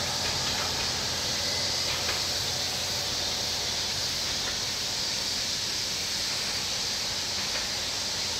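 A steady, high-pitched chorus of cicadas that holds at one level throughout.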